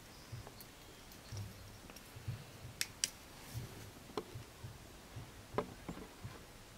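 Faint scattered clicks and light taps of hands handling small hard objects, with two sharp clicks close together about three seconds in and a few more later.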